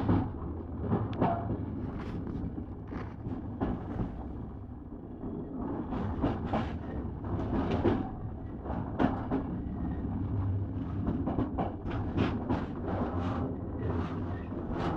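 Passenger train running, heard from its last carriage: a steady low rumble with frequent irregular clacks and knocks of the wheels over the track.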